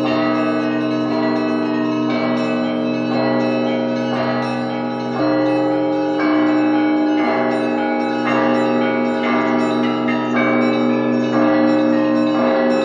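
Russian Orthodox church bells ringing from a monastery belfry: several bells of different pitches sound over one another, with new strikes about once a second.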